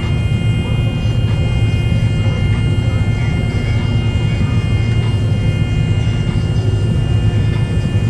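John Deere combine harvester running steadily while cutting soybeans, heard from inside the cab: a steady low engine drone with a few constant high whining tones over it.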